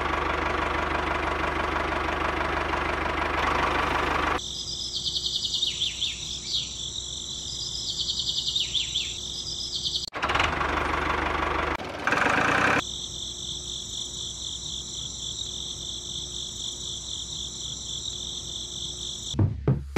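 Small electric gear motor of a homemade toy tractor running, with its whirring and the wheels' rumble heard in short takes separated by abrupt cuts. Between them, a high, steady, shrill whine with a fast pulsing texture.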